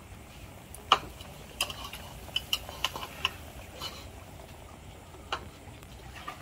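Spoon and chopsticks clinking against bowls and a metal pot during a meal. One sharp clink comes about a second in, then a quick run of lighter clinks over the next two seconds, then two more spaced well apart.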